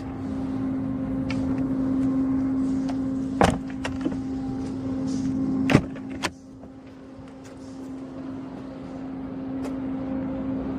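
Steady hum inside a Mercedes-Benz S65 AMG's cabin, with a few sharp clicks and knocks from the car's fittings being handled. After the last knock, about six seconds in, the hum is quieter.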